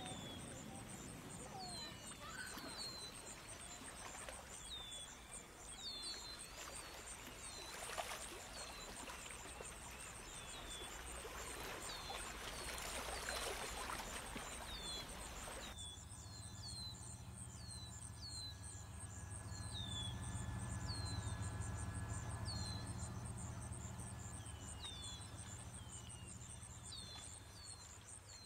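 Outdoor ambience: small birds chirping with many short, falling calls over a steady, pulsing high insect trill. In the second half a low, steady hum swells and then fades.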